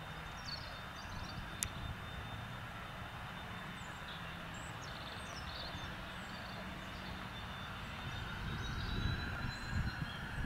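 Cessna Citation 525 business jet taxiing at low power, its twin Williams FJ44 turbofans giving a steady hiss and low rumble with a faint thin high whine. A single sharp click comes about a second and a half in, and near the end the low rumble grows louder and more uneven.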